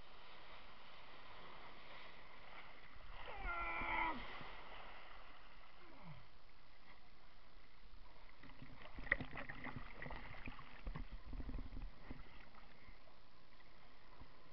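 Steady wind and water noise on a kitesurfer's camera. About three seconds in, a pitched call falls in pitch over about a second. A run of clicks and knocks follows from about eight to twelve seconds.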